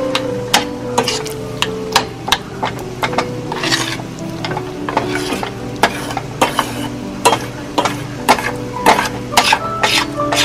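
A fork stirring and scraping thick, melting cheese and half-and-half in a stainless steel saucepan. Its tines click sharply and unevenly against the pan's bottom and sides, a couple of times a second.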